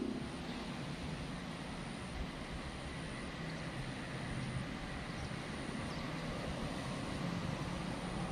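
Steady hum of distant road traffic, with a faint high tone that comes and goes.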